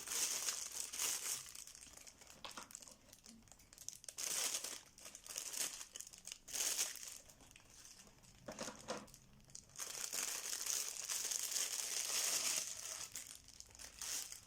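Packaging being crinkled and rustled as the parts of a flat-pack storage unit are unwrapped, in irregular bursts with short pauses, the longest stretch of rustling near the end.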